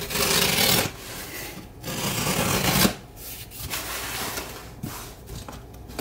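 Cardboard box flaps being pulled open and folded back by hand, with hands sliding over the cardboard. Two loud scraping bursts come in the first three seconds, then softer rubbing.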